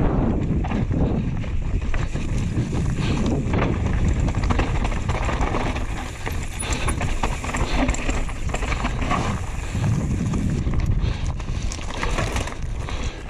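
Mountain bike descending a rocky scree trail at speed: tyres crunching over loose stones while the chain and frame rattle in a dense run of clicks and knocks, over a steady low wind rumble on the microphone.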